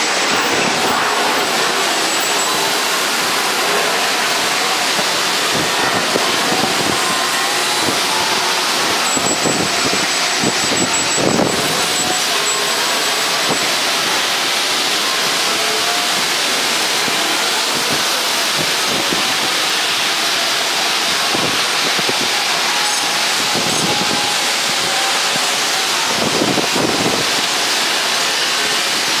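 Steady rushing noise of aircraft de-icing on an airport ramp: de-icing trucks spraying fluid, with a faint high whine near a jet airliner.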